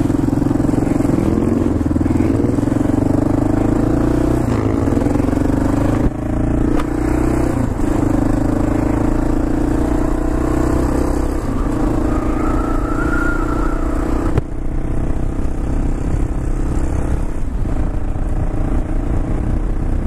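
Kawasaki KLR 650's single-cylinder engine running under way on a gravel road, its pitch rising and falling with the throttle, over a steady haze of wind and tyre noise. The sound dips briefly about six seconds in and again near fourteen seconds.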